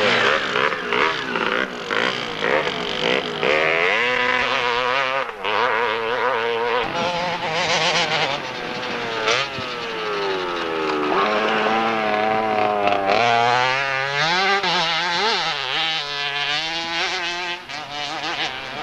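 Enduro dirt bike engines revving hard, the pitch climbing and dropping as the riders accelerate, change gear and back off, with more than one engine heard at times.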